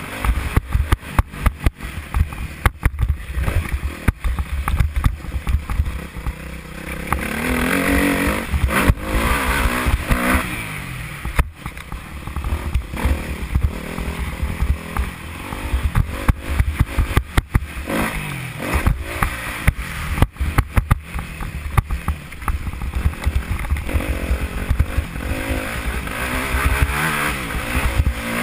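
Motocross bike engine revving hard, rising and falling in pitch as the rider accelerates and shifts, heard from a helmet-mounted camera with heavy wind rumble and frequent sharp knocks and rattles from the bumpy track.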